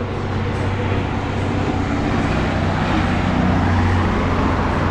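Road traffic on a highway: a vehicle's engine drone and tyre noise growing steadily louder as it passes.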